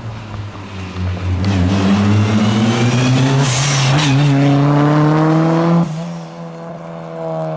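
Rally car engine accelerating hard, its pitch climbing through the revs. It changes up a gear about four seconds in and climbs again, then drops off sharply near six seconds as the driver lifts off.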